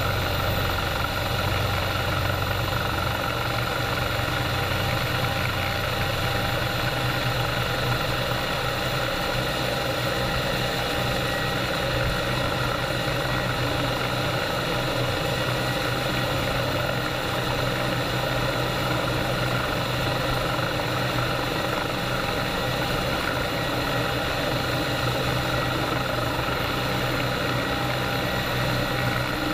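Bell 430 helicopter's twin turboshaft engines and rotor running steadily: a constant drone with steady whining tones that does not change pitch or level.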